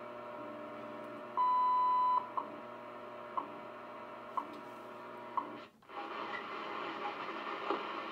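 Shortwave time-signal broadcast through a National NC-121 receiver's speaker over static: a held tone of nearly a second, then short pips once a second, the pattern of a time station's minute marker and second ticks. Near the end the signal drops out for a moment and gives way to a louder hiss as the receiver is tuned off it.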